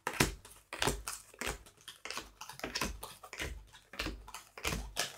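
Tarot cards dealt one after another onto a tabletop, each landing with a short tap or slap, about two or three a second in an uneven rhythm.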